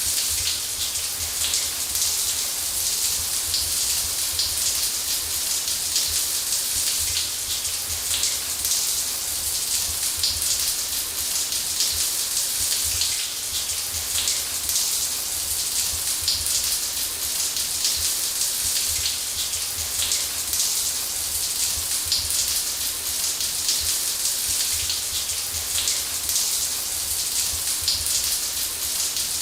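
Shower running steadily, a dense hiss of water spray pattering on a surface with a low rumble underneath.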